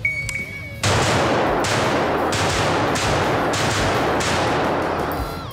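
Shot timer start beep, then a rapid string of 5.56 NATO shots from a Springfield Armory Saint Victor AR pistol, fired as fast follow-up pairs and singles with heavy indoor-range echo filling the gaps between shots.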